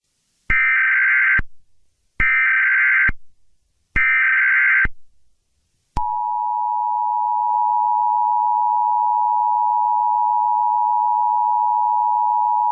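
Emergency Alert System (EAS) alert tones: three short bursts of the warbling SAME header data tone, each just under a second long and spaced about 1.7 s apart. About six seconds in, the steady two-tone attention signal (853 and 960 Hz) begins and holds.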